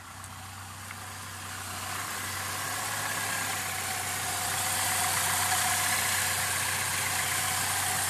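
2001 Saturn L200's 2.2-litre four-cylinder engine idling steadily, running again after its no-start. It grows louder over the first few seconds as the open engine bay is approached.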